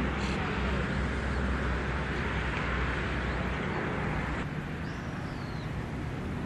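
Steady traffic noise of a built-up area, with a faint, brief bird whistle about five seconds in.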